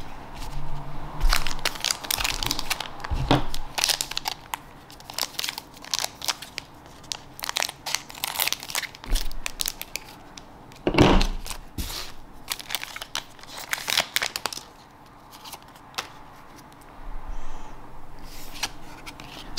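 Foil wrapper of a Digimon Card Game booster pack crinkling as it is handled and cut open with scissors, in many short sharp crackles; the loudest comes a little past the middle. Trading cards slide and tap as they are handled.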